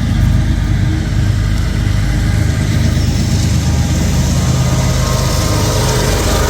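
An engine running steadily at a low pitch, with faint higher tones coming in near the end.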